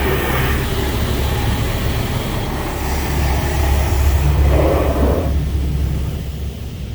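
Automatic car wash working over the car, heard from inside the cabin: a loud, steady rush of spraying water with a low rumble, swelling about four to five seconds in and easing near the end.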